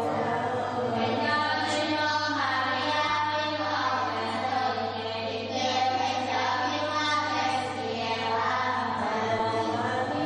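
Church congregation's many voices chanting together in unison, slow held notes that change every second or two.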